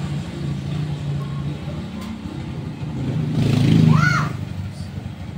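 Motor vehicle engine running steadily, then revving briefly with a whine that rises and falls about three and a half to four seconds in.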